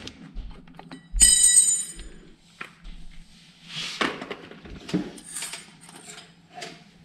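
A small metal fragment of the cracked transducer bracket drops onto a concrete floor about a second in, landing with a bright ringing clink. Quieter clicks and handling sounds follow.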